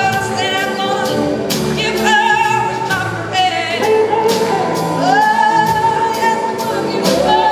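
Live rock band with a woman singing lead, holding long notes with vibrato and swooping up into them, over electric guitar and steady drums and cymbals.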